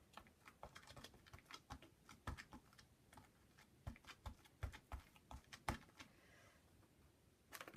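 Faint, irregular tapping and clicking as a hand-held craft stamp is dabbed into paint on a palette, with one sharper click near the end.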